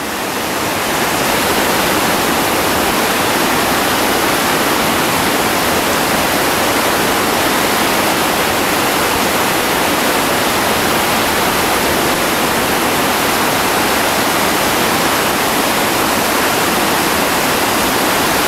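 Steady, loud rush of a whitewater rapid pouring between boulders, rising a little over the first second and then holding even.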